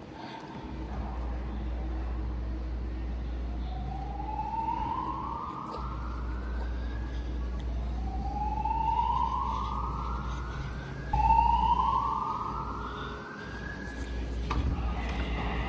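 Voice-evacuation fire alarm sounding its evacuation tone, a slow whoop: a rising sweep that climbs for about three seconds, heard three times, over a steady low hum.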